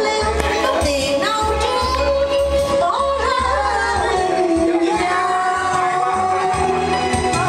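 A woman singing a Vietnamese song into a microphone over backing music with a pulsing bass beat. She holds one long note through the second half.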